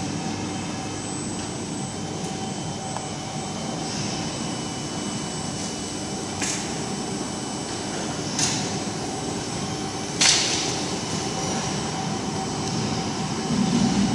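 Steady hum and whine of running workshop machinery, broken by three short hisses about two seconds apart, the last one the loudest.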